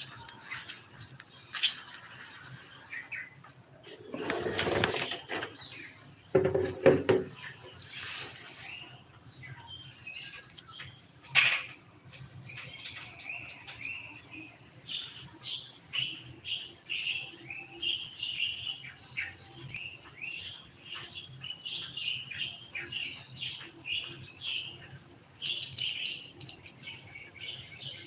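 Small birds chirping in quick short calls over a steady high insect whine, with a few louder rustling noises in the first third.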